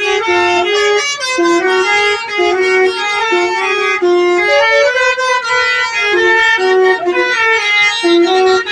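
Basuri melodic vehicle horns playing a tune in short stepped notes over a steady held tone.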